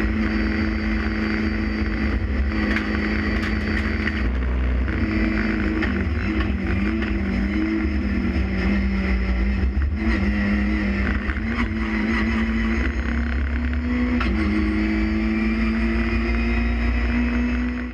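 Renault Clio Cup race car engine heard from inside the cockpit, running at a steady high note with wind and road noise beneath. About four seconds in the engine note drops lower and wavers, then about fourteen seconds in it climbs back to a steady high note before cutting off suddenly at the very end.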